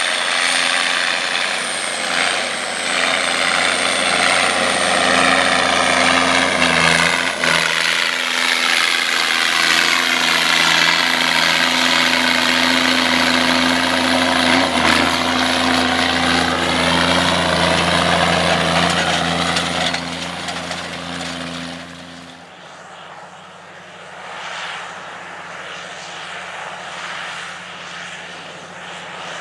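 Massey Ferguson 5200's 855 cubic inch Cummins diesel running steadily under load as the tractor pulls a no-till grain drill. About 22 seconds in it cuts off suddenly and a quieter, more distant tractor engine takes over.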